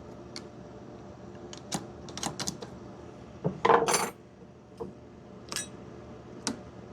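Small metal tools and motor parts clinking and tapping against each other in a scattered string of clicks, with a louder scrape of metal on metal about three and a half seconds in.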